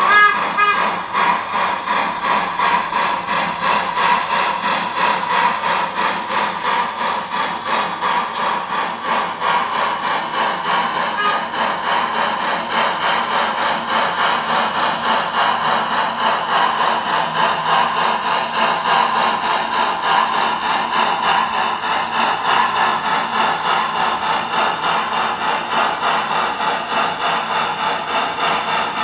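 Piko HO-scale steam locomotive's sound decoder playing a steady steam chuff, about two beats a second, as the engine runs under way. The tail of a whistle fades out just at the start.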